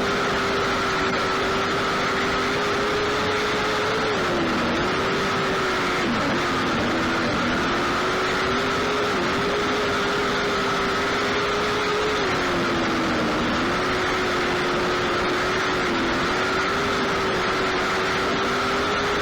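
Lightning sprint race car engine running hard at high revs, its pitch sagging briefly several times as the throttle comes off and on.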